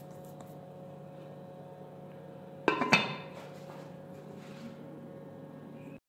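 A glass pot lid set down on a glass mixing bowl: two quick clinks close together about three seconds in, with a short ring.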